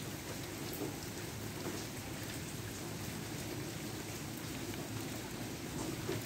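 Steady rain falling, with scattered single drops ticking through it and a low, even rumble underneath.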